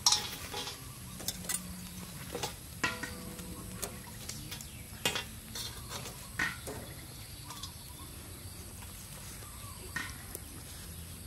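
Metal tongs clinking and scraping against a wire grill rack and a steel tray as grilled eels are lifted off the charcoal: scattered sharp clinks a second or so apart.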